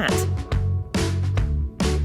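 Upbeat electronic backing music with a heavy bass and a steady beat.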